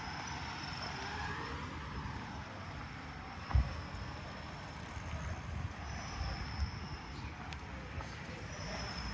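Street ambience with a steady low rumble of traffic and one short dull thump a little over a third of the way in.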